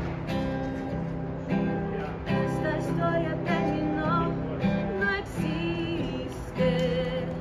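Acoustic guitar strumming chords, with a young woman's voice singing a slow melody over it from about three seconds in.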